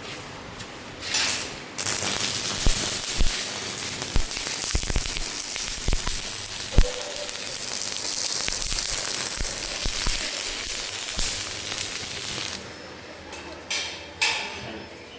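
Electric arc welding on steel pipe and angle iron: a steady frying crackle with scattered pops. It starts after a brief strike about a second in, runs until about two and a half seconds before the end, and is followed by two short bursts.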